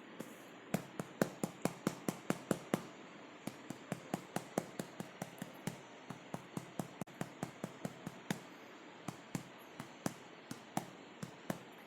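A hand patting a baby's back to bring up a burp: quick, even pats, about four or five a second, in runs broken by short pauses.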